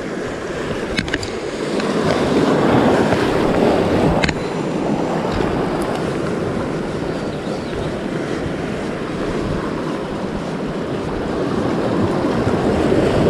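Sea surf washing over shoreline rocks, swelling and easing, with wind buffeting the microphone. A few faint sharp ticks sound over it.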